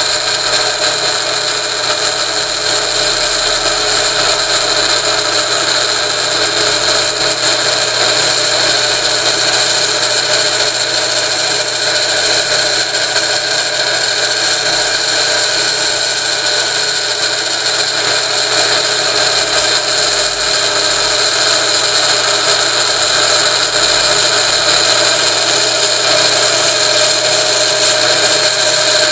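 An electric motor drives a shaft by belt while a hand-held drill bit, used as a lathe cutter, scrapes metal off a spinning rotor of mixed iron and aluminium: a steady, high-pitched scraping whine over the motor's hum.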